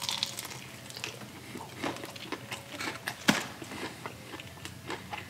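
A bite into a piece of breaded fried chicken, then chewing close to the microphone with scattered short crunches, the sharpest about three seconds in.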